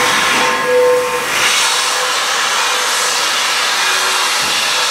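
Steam hissing steadily from Pere Marquette 1225, a 2-8-4 Berkshire steam locomotive, venting a large cloud of steam. A faint steady tone sounds under the hiss in the first second.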